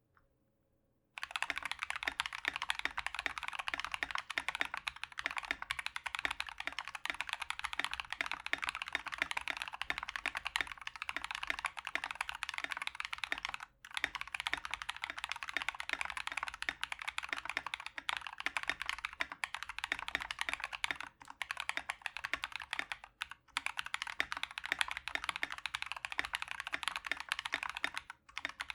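Fast continuous typing on a 60% mechanical keyboard with lubed and filmed Glorious Panda 67g tactile switches and PBT keycaps, starting about a second in, with a few brief pauses. The Pandas are among the loudest tactile switches.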